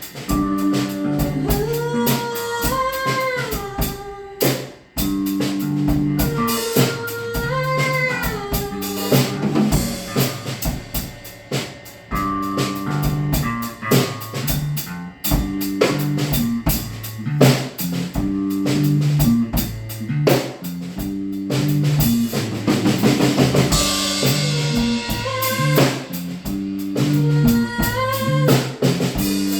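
Band music with a drum kit beat of kick and snare under a melody that slides up and down in pitch.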